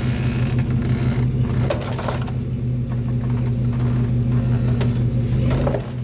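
Chevy Astro minivan's engine running steadily under load as it pulls a chain-wrapped boulder out of a pit. The taut chain clanks and scrapes over the boards in short rattles about two seconds in and again near the end.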